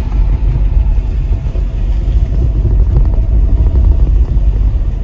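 Hyundai i20 hatchback's engine and tyres giving a steady low rumble on a rough dirt road, heard from inside the cabin.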